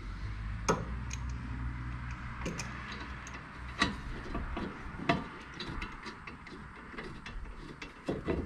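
Irregular clicks and taps of a new rear wheel bearing hub being held against the knuckle while its mounting bolts are fitted and started by hand from behind. A low steady hum runs underneath and fades out about halfway.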